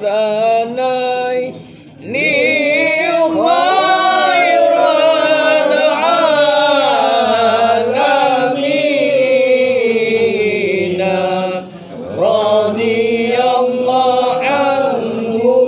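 A group of men chanting Arabic devotional verses (marhaban/selawat on the Prophet and his family) with long held, melismatic notes that wind up and down in pitch. The chant breaks off briefly about two seconds in and again just before twelve seconds.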